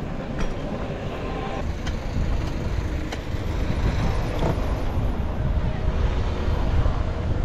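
City street traffic noise with a steady low rumble and a few faint ticks.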